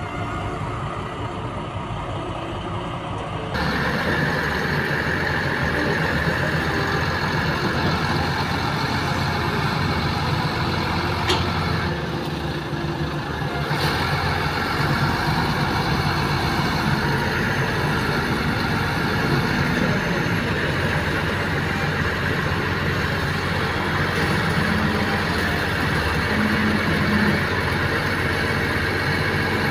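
Heavy diesel engines of a Cat 320B crawler excavator and a crawler bulldozer running as they dig and push mud: a steady engine drone that gets suddenly louder about three and a half seconds in.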